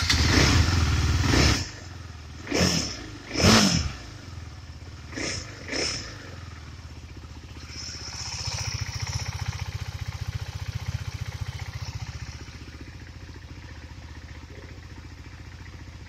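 2018 KTM Duke 390's single-cylinder engine just after starting, running loud for about a second and a half before dropping to idle. It is blipped with two sharp throttle revs about three seconds in and two smaller ones near six seconds, then idles steadily, a little louder for a few seconds in the middle before settling.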